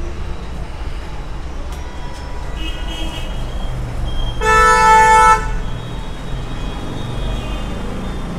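A vehicle horn honks once for about a second, midway, a steady single-pitched blare over a low rumble of street traffic. Fainter, higher beeps come a second or so before it.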